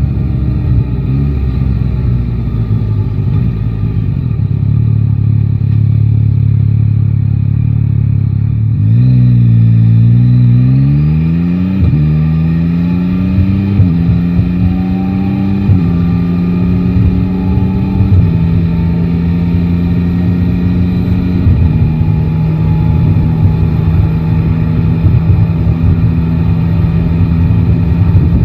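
Yamaha Tracer 9 GT's three-cylinder engine running at low revs, then pulling away about nine seconds in. It rises in pitch through first gear and is shifted up four times, every two seconds or so, before settling to a steady cruising note.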